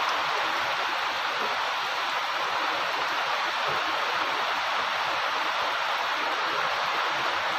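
A steady rushing noise that holds an even level throughout, with no distinct events.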